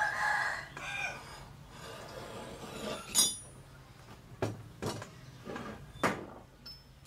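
Steel plates and bars being handled and set down on a wooden table: one sharp ringing metal-on-metal clink about three seconds in, then four knocks as pieces are laid down. A rooster crows at the start.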